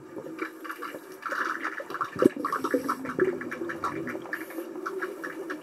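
Scuba divers' exhaled air bubbling and gurgling underwater in a swimming pool, heard through an underwater camera housing as a run of irregular short bubbly bursts.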